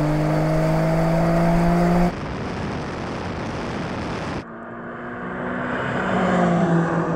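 High-performance car engine pulling hard under full-throttle acceleration, its note climbing slowly in pitch. The sound cuts abruptly about two seconds in to a rushing noise with no engine note, then cuts back to the engine note about four seconds later.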